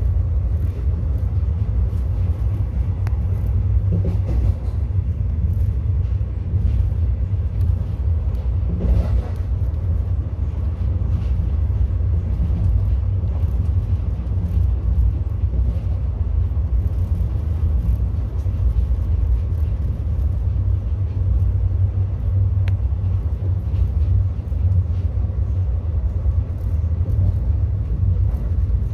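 Steady low rumble of an ICF passenger coach running along the track, heard from inside an air-conditioned coach, with a few faint knocks and rattles.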